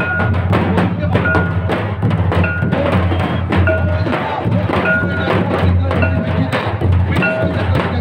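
Dance music with a steady drum beat, a heavy low boom under it and short repeated high notes over the top.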